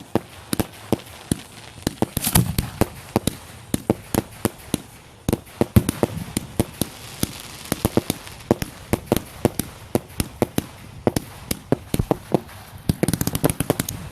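Aerial fireworks going off in a rapid, irregular string of sharp bangs, several a second.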